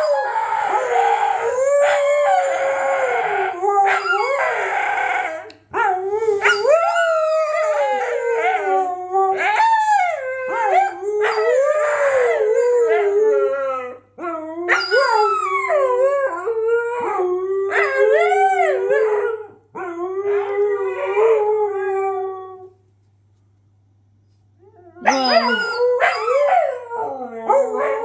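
Siberian huskies howling together in long, wavering howls that rise and fall in pitch and overlap one another. They break off briefly a few times, then stop for about two seconds near the end before starting again.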